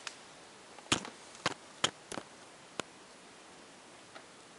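A handful of short, sharp clicks and knocks, about six spread over two seconds, over a faint hiss.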